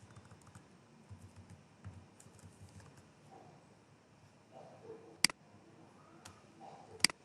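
Computer keyboard typing: soft, scattered keystrokes, with two sharper, louder key clicks about five and seven seconds in.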